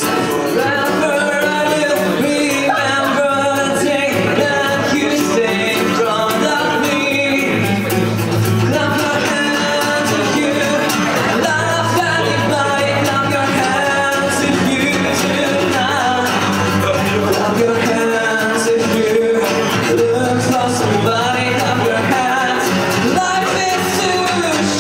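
A band playing a song, with a singing voice over bass, guitar and drums.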